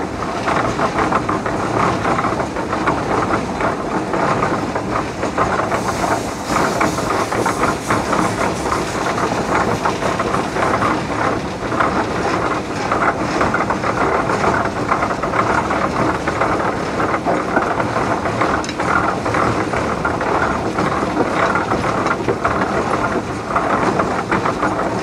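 Steam traction engine running while being driven, with a steady, busy mechanical clatter from the engine and its gearing.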